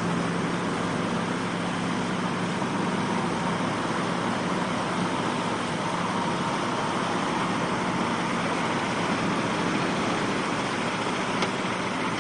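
An old army truck's engine running as the truck wades through shallow water and pulls out onto the shore, under a steady rushing of water and surf.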